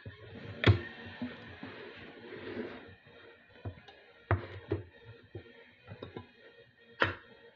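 A few sharp knocks from a can and glass being handled on a tabletop, the loudest about a second in and near the end, over faint background music.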